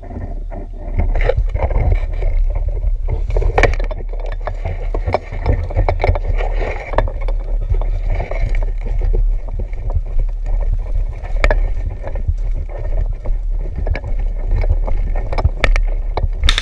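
Footsteps crunching over dry leaves and forest floor with gear and clothing rustling, irregular knocks and clicks, under a heavy low rumble of wind and handling noise on the moving camera's microphone.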